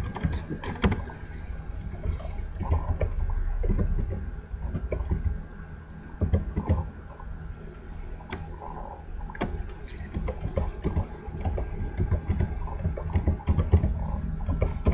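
Computer keyboard keys pressed one at a time at an uneven, slow pace, typing a password, over a steady low hum.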